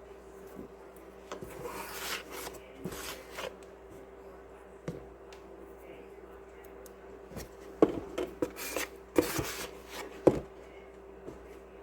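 Flour being measured out for choux dough: scooping and scraping in a flour container, then a run of sharp knocks and clicks from the cup and utensils near the end, over a faint steady hum.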